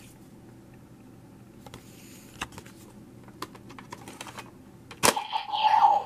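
Faint plastic clicks from a Kamen Rider transformation-device toy, then about five seconds in a sharp click and the start of a loud electronic henshin sound effect, a steady tone with falling sweeps.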